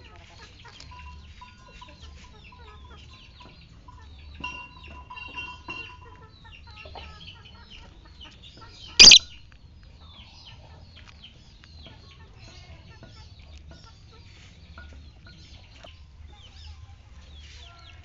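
Birds chattering in short chirps and clucks throughout, with one loud, sharp call about nine seconds in.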